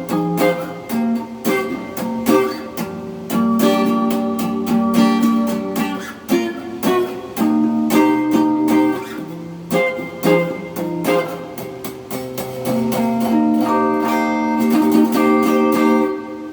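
Miller electric guitar played through a Dumble-style overdrive pedal with reverb on: picked single notes and chords ringing out.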